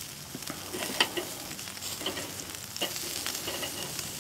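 Shrimp sizzling on a hot charcoal grill grate, a steady hiss, with sharp metallic clicks of tongs against the grate as the shrimp are flipped; the loudest click comes about a second in.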